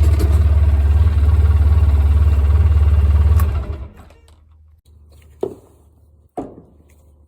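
Polaris Ranger 800 utility vehicle's engine running steadily close by, cutting off about three and a half seconds in. Two short knocks follow near the end.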